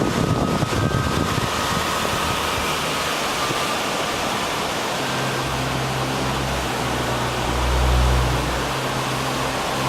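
Steady rushing wash of the sea. About halfway through, a low steady hum joins it and swells briefly near the end.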